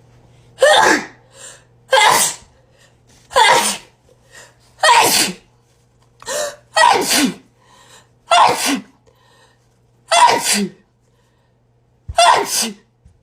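A woman in a sneezing fit: about eight loud sneezes in a row, roughly one every second and a half, the last a quick double.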